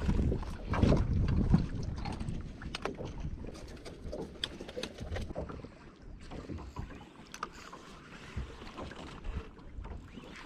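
Wind buffeting the microphone, a low rumble strongest in the first couple of seconds and then easing, with scattered light clicks and knocks.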